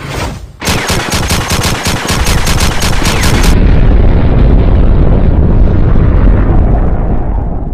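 Machine-gun fire sound effect, a rapid string of shots about six a second for roughly three seconds, followed by a long, loud explosion rumble that slowly fades.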